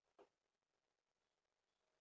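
Near silence: a gap between clips with no audible sound.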